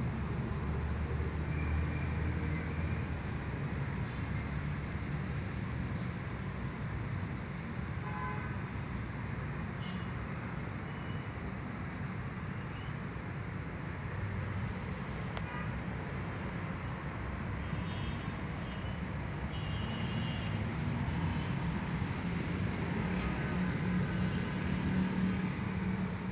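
Steady low background rumble without speech, with a few faint short tones here and there.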